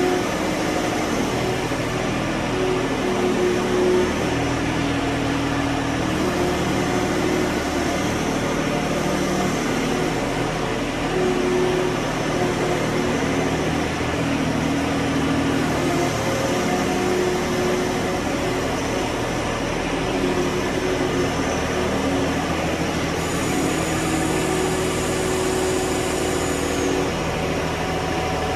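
John Deere 1023E compact tractor's three-cylinder diesel engine running steadily while the tractor is driven slowly and turned, its tones shifting up and down in pitch as it manoeuvres.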